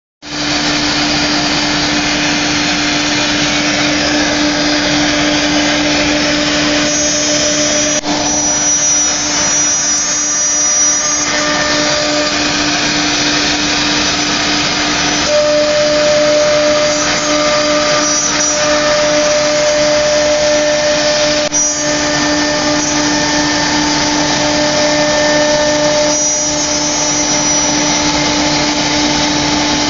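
Four-spindle CNC wood router running with a steady whine over loud, even machine noise, through two brief dips in level.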